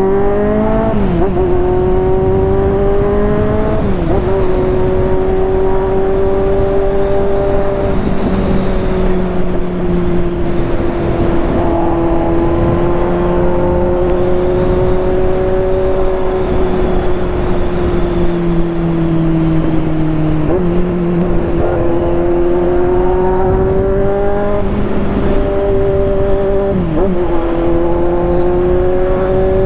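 Kawasaki Z800's inline-four engine running at high, fairly steady revs under way. Its pitch dips briefly a few times and picks up again.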